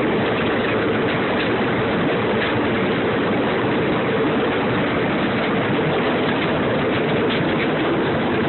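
Steady running drone of a ride-on train, heard from its open passenger car while it moves.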